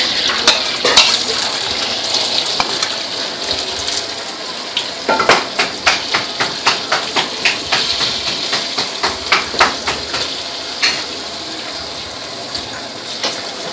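Egg sizzling in hot oil in a steel wok, with a metal ladle clinking against the wok, a quick run of taps about three a second from about five seconds in to about ten seconds in.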